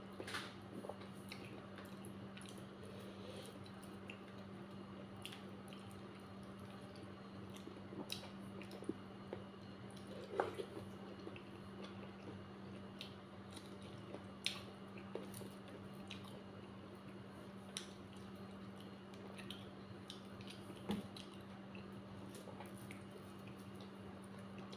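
Close-up eating sounds: wet squishing and chewing of a dhido meal, with scattered small smacks and clicks. A steady low hum runs underneath.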